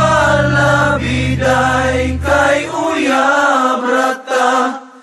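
A man singing a Cebuano love song, drawing out wavering notes with no clear words, over a low backing accompaniment that drops out about three seconds in.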